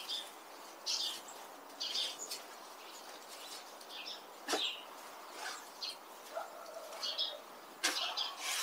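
Light, short strokes of a rake scratching through dry leaves, about one a second, with a sharp click about halfway through.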